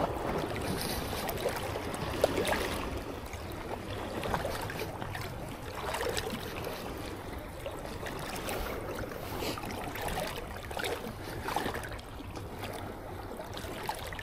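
Ocean surf washing on the beach: a steady rush of water noise that swells and fades.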